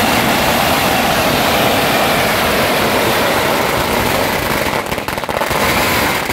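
Firecrackers going off on the street in a dense, continuous rattle of bangs. The rattle loosens into more separate cracks about five seconds in.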